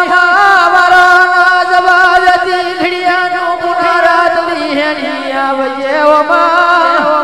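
Gujarati devotional folk song (Meldi Maa regadi): a long held vocal note with a slight waver, stepping down in pitch about five seconds in, over scattered drum strikes.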